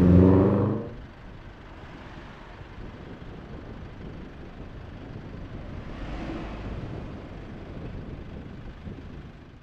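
Street traffic ambience on a town main road, a steady hum of road noise, with a vehicle passing about six seconds in.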